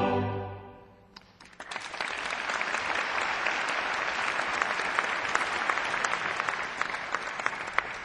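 A choir and strings' closing chord fades out, then the audience starts clapping about a second in and keeps up steady applause that thins a little near the end.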